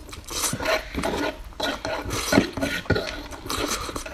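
Close-miked eating sounds: chewing and mouth noises with irregular clicks and crackles, the loudest about two and a half seconds in.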